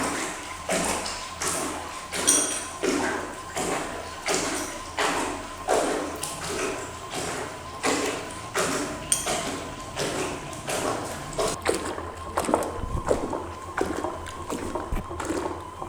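Homemade washing machine's wiper-motor-driven pulsator agitating water and clothes, sloshing in even surges about every 0.7 s as it turns one way and then the other, over a faint steady motor whine.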